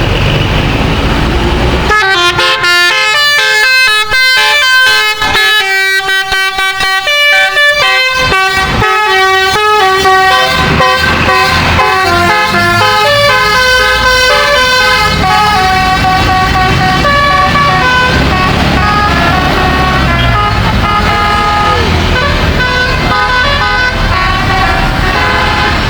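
Bus telolet horn, a multi-tone musical air horn, playing a quick tune of short stepped notes that starts about two seconds in and keeps going, over the low rumble of the bus engine.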